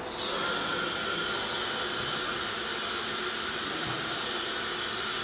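An LM4-CNC-7000 aluminium profile CNC machining centre running: a loud, steady hiss with a faint whine in it comes on suddenly just after the start and holds.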